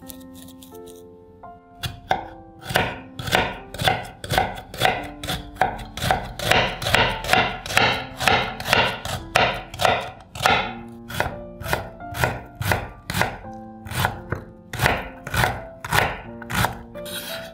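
Chef's knife chopping an onion on a wooden cutting board: a steady run of sharp knocks, about two to three a second, starting about two seconds in.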